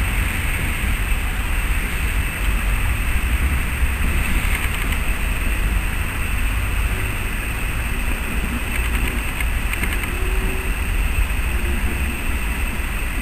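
Steady train noise at a railway station: a constant low rumble with a faint high whine over it.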